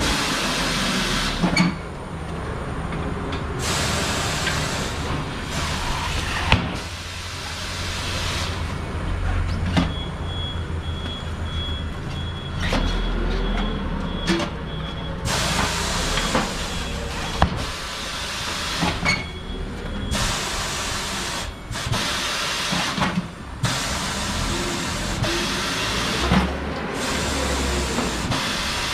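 Compressed air hissing in repeated bursts that start and stop sharply, each lasting one to a few seconds, over a low machine hum with a few sharp clicks, during work on a tractor tyre.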